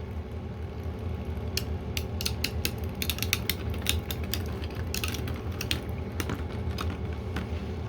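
Beyblade spinning tops battling at the end of their spin: a steady low whirr, with a run of sharp clicks and clacks from about a second and a half in as the tops knock together and the wobbling one clatters.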